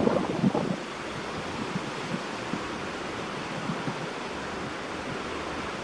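Steady rushing of wind, even and unbroken, with a brief voice in the first second.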